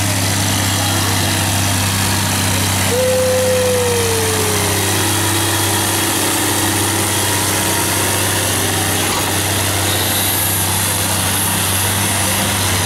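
Case 900 tractor engine under steady load pulling a weight-transfer sled, a constant low drone that holds an even pitch. About three seconds in, a brief higher tone slides down in pitch.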